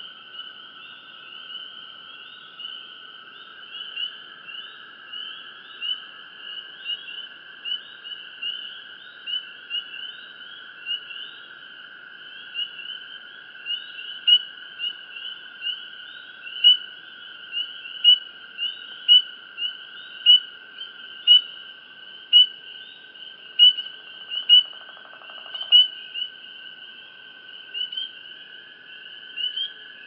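Night insect chorus: crickets chirping in a steady rhythm, with the loudest chirps coming roughly once a second, over a continuous lower-pitched trill.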